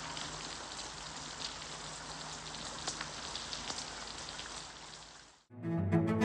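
Heavy rain pouring down in a steady hiss, with scattered louder drops ticking. The rain fades out about five seconds in, and music with sustained low notes begins near the end.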